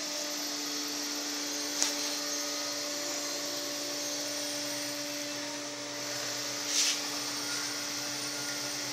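Small electric blower fan of a forced-draft biomass pellet cook stove running steadily, a constant hum over rushing air as it drives the freshly lit pellet fire. Two brief crackles or knocks, about two seconds in and near seven seconds.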